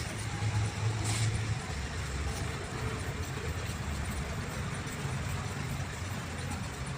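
A motor running steadily at a low, even pitch, with a brief hiss about a second in.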